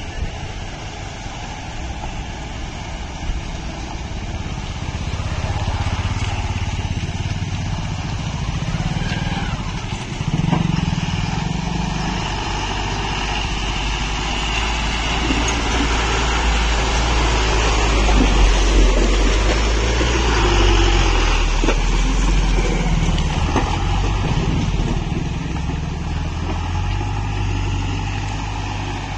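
Ashok Leyland goods truck's diesel engine working slowly through a stretch of potholes, growing louder as it approaches, loudest about two-thirds of the way in, then fading as it pulls away.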